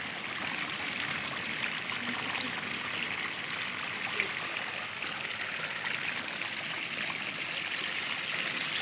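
Water rushing steadily through a cut in a mud bank and churning into a pond.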